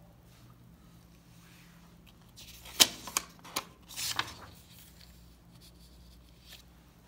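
A paper textbook page being turned by hand: a few sharp paper snaps and rustles in the middle, the first the loudest, with a longer rustle as the page comes over.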